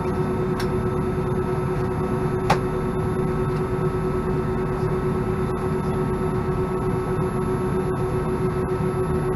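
Steady cabin drone of an Airbus A319 idling on the ground: a low rumble with an even whining tone over it. There is one brief click about two and a half seconds in.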